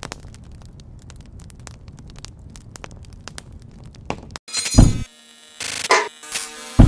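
Campfire crackling sound effect: a low rumble with quick, irregular pops. About four seconds in it cuts to an animated intro's sound design, with loud whooshes and hits over short held musical tones.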